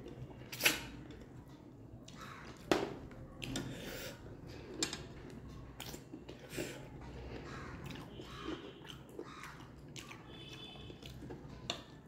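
Close-miked eating sounds: a person chewing and sucking meat off a curried mutton bone, with scattered wet lip smacks and clicks. The sharpest smacks come about half a second in and again near three seconds in.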